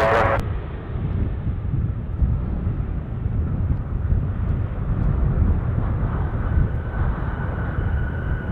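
Jet airliner on approach heard from outdoors: a steady low rumble, with a high engine whine coming in about six seconds in as the aircraft draws nearer.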